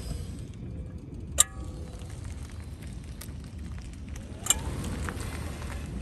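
A Tesla Model X rolling slowly over asphalt, with two sharp clicks about three seconds apart; the first is the louder and rings briefly. The clicking is a recurring fault that service has tried to cure at the rear drive units, half shafts and axle nuts without success.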